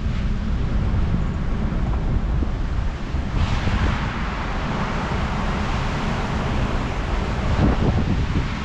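Wind buffeting the microphone over the low rumble of a Ford Bronco driving; a brighter, steady hiss joins about three and a half seconds in.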